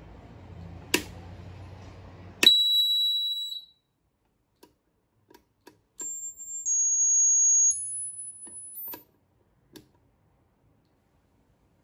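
Ultrasonic pest repeller giving off audible high-pitched tones. A switch click about two and a half seconds in is followed by a loud, steady high tone lasting about a second. After a few small clicks, a run of steady high tones follows for about three seconds, stepping to a new, mostly higher pitch every second or so as the function knob is turned through its modes.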